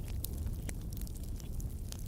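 Wood fire burning with a low steady roar and scattered sharp crackles and pops of burning firewood, a handful of them in two seconds.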